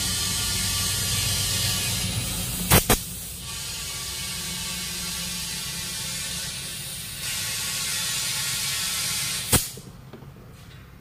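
Compressed air hissing steadily through a tyre inflator chuck as it fills an inner tube, with two sharp clicks about three seconds in. Near the end the hiss stops with a click.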